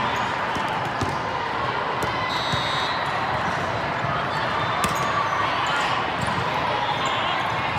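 Busy ambience of a volleyball tournament hall: many overlapping voices with scattered sharp smacks of volleyballs being hit and bounced on nearby courts, in a large echoing hall.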